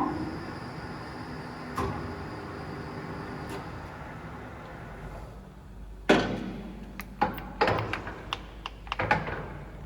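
SanShing SK 2260 centre lathe's geared headstock running and winding down, its hum fading over the first few seconds. From about six seconds in comes a series of sharp clunks and clicks.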